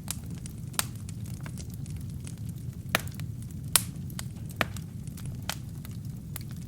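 Wood fire burning in a fireplace: a steady low rumble of flames with irregular sharp crackles and pops from the burning wood and kindling, two louder pops about three and four seconds in.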